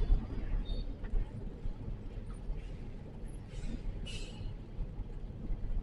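Steady low rumble of a truck's diesel engine, with a brief hiss about three and a half to four seconds in.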